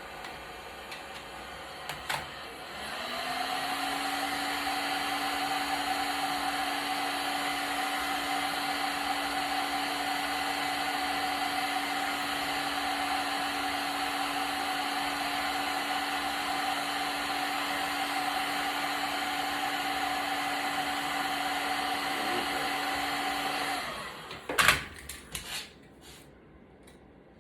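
A small electric fan-driven motor switches on about two and a half seconds in and spins up quickly to a steady whirring hum. It runs for about twenty seconds, then switches off, followed by a few sharp knocks and clicks.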